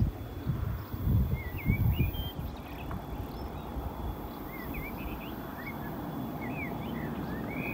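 Small birds chirping: many short calls, a lot of them rising in pitch, over a low rumble that is loudest in the first two seconds.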